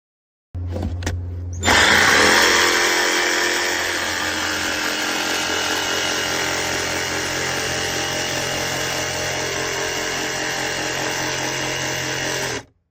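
DeWalt 20V MAX DCS331B cordless jig saw running: it starts abruptly, grows louder about a second in, then runs steadily until it cuts off sharply near the end.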